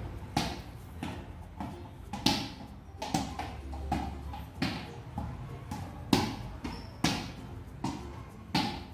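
Moon ball (high-bounce ball) bouncing repeatedly on a hard floor: a string of sharp pops, about one every half second to a second, the loudest near two and six seconds in.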